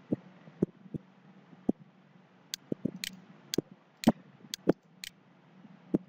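Computer mouse buttons clicking about fifteen times at an uneven pace, some clicks in quick pairs, over a faint steady low hum.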